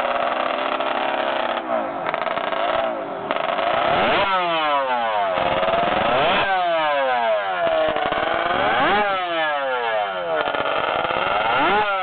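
300 cc MZ works racing motorcycle's two-stroke engine being revved on the stand, blipped several times. Each rev rises sharply in pitch, then falls away before the next.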